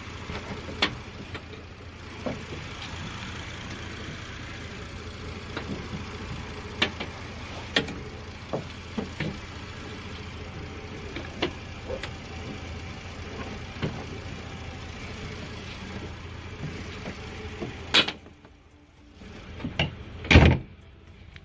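A car engine idling with the hood open, with scattered light clicks from handling under the hood. Near the end the hood is brought down: a first knock, the engine noise then drops away, and the hood shuts with a loud thump.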